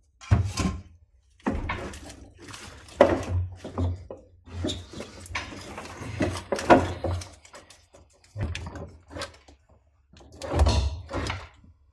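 Irregular knocks, thumps and rustling as a car's old wiring harness is handled and pulled about inside the bare metal body shell, with short pauses between bouts.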